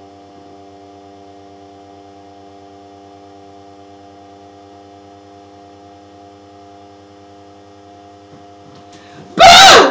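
Steady electrical hum, then about nine seconds in a sudden, very loud scream lasting about half a second: a shout to scare away someone's hiccups.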